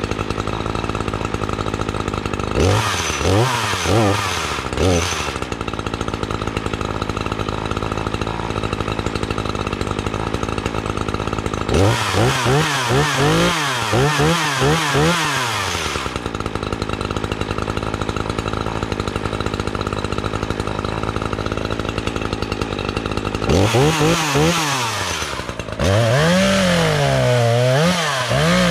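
Echo CS3510 two-stroke gas chainsaw warming up after a cold start: it idles steadily and is revved in short bursts three times, idling in between. Near the end it is held at high revs as the chain cuts into a log.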